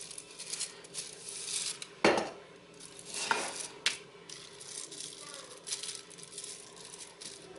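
Clear plastic bag crinkling and rustling under the hands as a grape leaf is spread flat on it. A few light knocks come through, the loudest about two seconds in.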